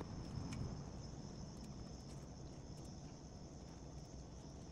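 Quiet room tone: a steady faint high-pitched whine over a low hum, with a few faint small clicks early on from hands handling small parts.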